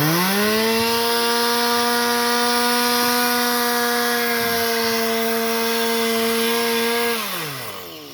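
Two-stroke chainsaw revving up and held at full throttle at a steady high pitch for about seven seconds, then the throttle is let off and the pitch falls away near the end. The chain is shot: it was seen smoking.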